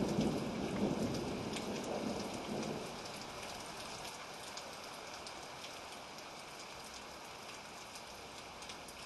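Steady rain with scattered drop ticks, under a low thunder rumble that fades away over the first three seconds.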